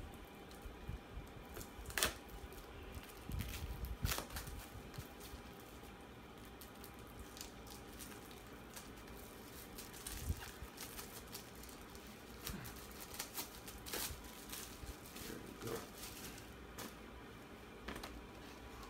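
Plastic shrink-wrap being picked at, torn and peeled off a cardboard Blu-ray box: faint crinkling and tearing with scattered sharp clicks and taps, the loudest about two and four seconds in.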